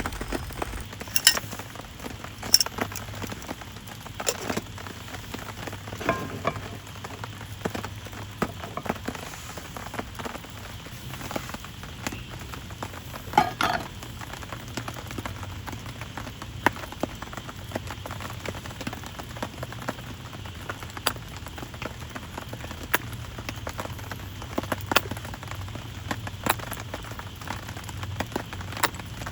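Steady rain with heavy drops ticking irregularly on a plastic tarp, and now and then a louder tap, the loudest about halfway through.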